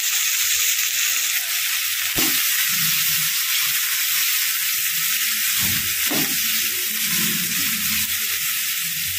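Shredded cabbage, carrot, capsicum and onion sizzling steadily in hot oil in a pan while a wooden spatula stirs them, with a few soft knocks of the spatula against the pan.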